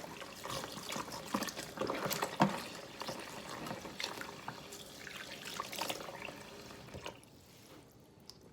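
Water splashing and sloshing as chopped raw chicken is handled in water and vinegar, with irregular clicks and knocks, dying away about seven seconds in.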